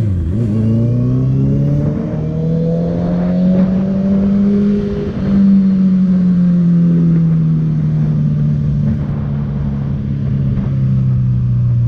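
Honda CB650F's inline-four engine through an aftermarket Jeskap full sport exhaust, pulling under acceleration with its pitch rising for about four seconds, a brief dip around five seconds in as it shifts, then easing off with the pitch falling slowly.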